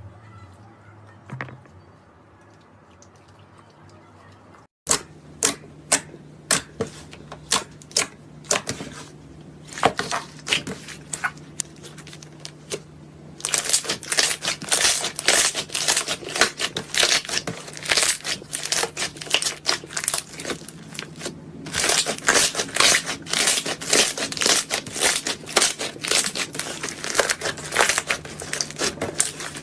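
Slime being squeezed and poked, giving off sharp clicking pops and crackles. After a few quiet seconds the pops start suddenly, scattered at first, then come thick and fast about halfway through.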